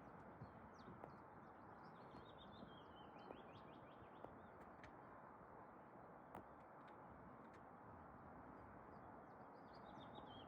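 Faint songbird song over a steady outdoor background hiss: a quick run of high notes falling slightly in pitch, heard twice, a couple of seconds in and again near the end, with a few faint ticks between.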